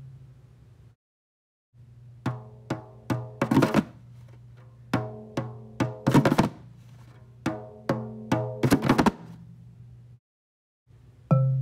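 Hand percussion playing a short rhythmic phrase three times over. Each phrase is a few sharp drum hits followed by a quick rattling roll.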